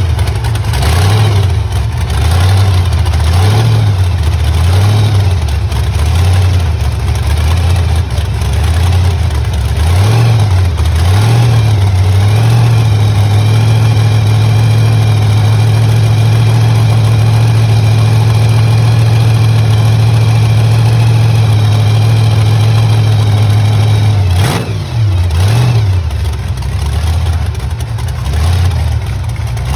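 Supercharged big-block V8 of a rat rod running loud after a cold start: a lumpy idle that rises and falls every second or so, then a steady raised idle for about ten seconds, a sudden drop, and a few more swells of revs near the end.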